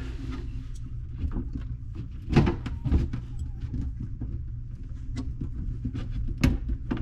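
Scattered clicks and knocks of hands working a plumbing connection under a kitchen sink, the ice-maker tee fitting that was not screwed on all the way, over a steady low hum.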